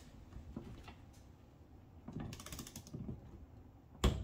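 Torque wrench ratcheting in short bursts on the bracket bolt, then one sharp, loud click near the end as the wrench breaks over at its 20 ft-lb setting.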